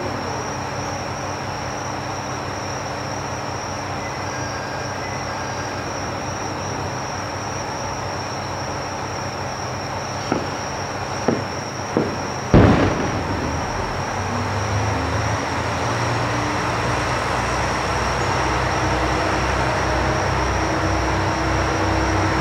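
A Joso Line diesel railcar pulls out of the station: a low, pulsing engine throb starts about fourteen seconds in and grows louder. Just before it come a few sharp bangs, the last and loudest with a short echoing tail.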